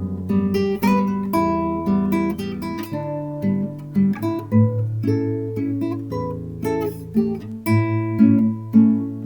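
Acoustic guitar played fingerstyle: plucked low bass notes held under a melody of quicker plucked notes above, with an occasional strum.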